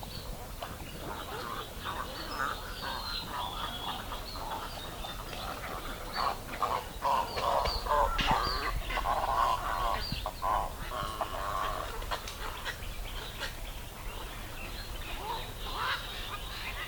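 Wild birds calling: many short, harsh calls overlapping with higher chirps, thickest through the middle stretch.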